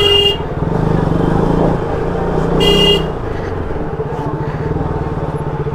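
Motorcycle engine running at low speed in slow traffic, with a short horn toot right at the start and another nearly three seconds in.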